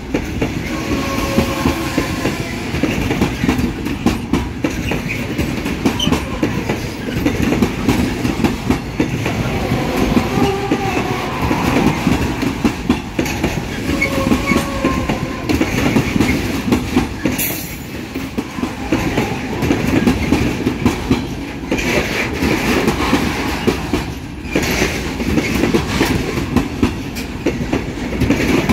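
Freight train wagons rolling past, their wheels clattering steadily over the rail joints, with a few brief wheel squeals.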